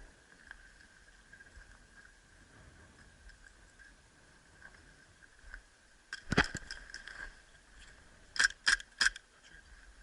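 Airsoft pistol shots: a loud shot about six seconds in with some clatter after it, then three quick shots about a third of a second apart near the end.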